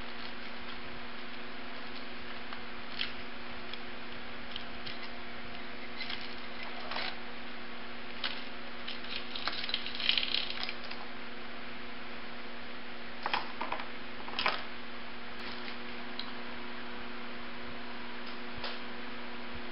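Scattered light clicks and rattles of a Honda ATC 110 engine's cam chain as it is worked off its sprockets by hand, busiest about ten seconds in and again around thirteen to fifteen seconds in, over a steady low hum.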